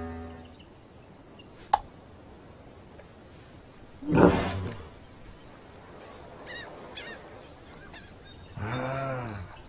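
Cartoon sound effects: the donkey gives a short honking call about four seconds in, the loudest sound here. Faint chirps follow, then near the end a low call of about a second that rises and falls in pitch. Music fades out at the very start.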